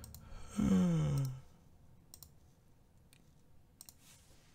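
A few scattered sharp clicks, one near the start, a pair about a second in, and others around two and four seconds. About half a second in, a man's voice gives a short hum that falls in pitch.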